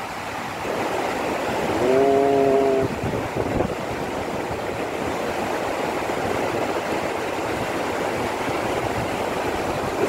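Akiu Great Falls pouring into its plunge pool: a steady rush of falling water. A short held tone, about a second long, sounds over it about two seconds in.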